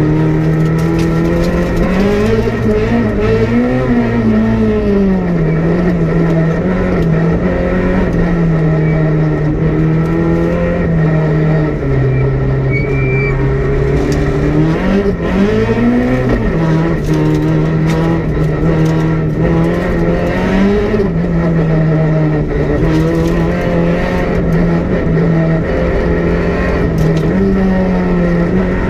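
Peugeot 208 R2 rally car's 1.6-litre four-cylinder engine under hard driving, heard from inside the cockpit. It is held at high revs at a mostly steady pitch, which drops and climbs again a few times.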